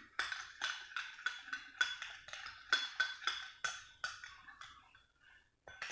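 Metal spoon clinking against a small glass bowl while stirring body lotion and baby shampoo together, about three taps a second, each with a short glassy ring. The taps fade out about four and a half seconds in, with one more clink near the end.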